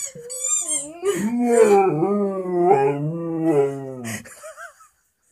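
Vizsla howling: one long wavering howl of about three seconds, its pitch sliding lower toward the end, just after a brief high squeal.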